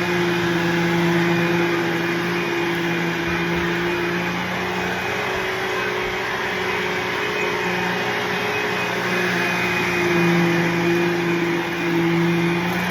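Bissell Cleanview II Bagless upright vacuum cleaner (model 3576-2) running steadily: a motor hum and whine over an airflow hiss, wavering slightly in pitch and loudness.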